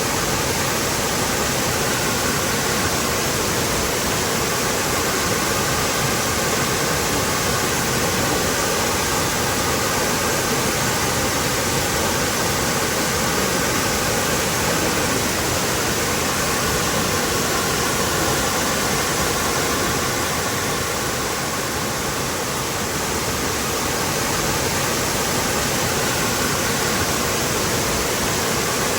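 Waterfall pouring steadily: a dense, even rush of falling water.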